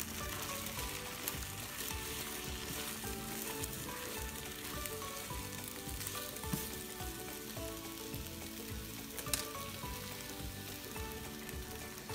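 Egg whites sizzling in a nonstick frying pan as a silicone spatula stirs them into a scramble. Two sharp ticks stand out, one about halfway through and one about three quarters through.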